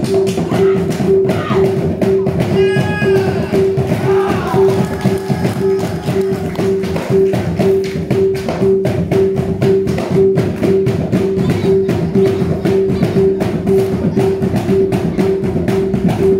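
Music accompanying a silat performance: fast, dense drumming over a steady pulsing tone.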